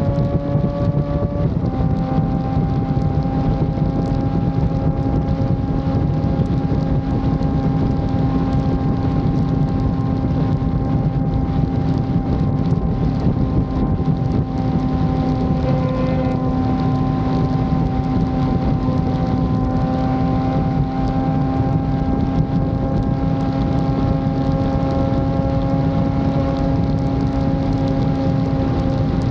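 Yamaha FZ6 Fazer 600 inline-four engine running at steady cruising revs under way, with wind noise on the microphone. Its note drops slightly about a second and a half in, then holds nearly steady.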